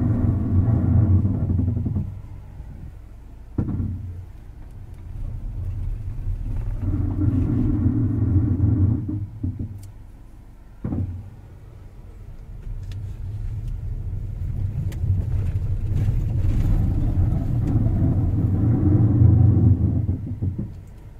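Luxgen U6's brakes making an abnormal noise: a low, buzzy groan that comes in three spells, with a sharp knock twice in the gaps between them.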